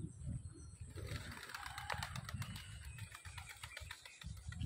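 Pigeons flying, a quick flurry of wing flaps and claps starting about a second in and fading after a couple of seconds, over a low rumble.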